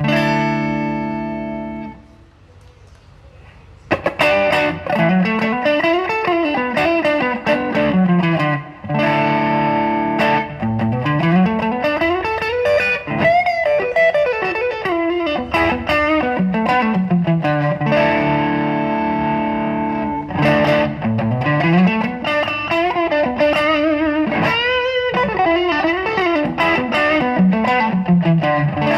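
Electric guitar played through a TC Electronic El Cambo overdrive pedal, with a distorted tone. A held chord rings out and fades, and after a short pause about two seconds in, riffs follow, with runs of notes climbing and falling between ringing chords.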